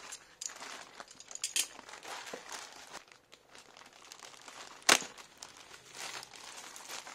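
Plastic courier mailer bag crinkling and tearing as it is cut and pulled open by hand, with one sharp snap about five seconds in.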